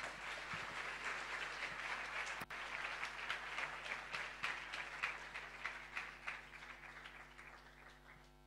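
Audience applauding, the clapping thinning and dying away gradually over the last few seconds.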